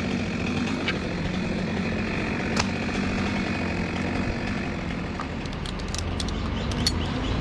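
Stihl 200T top-handle two-stroke chainsaw idling steadily, with a few sharp clicks near the end.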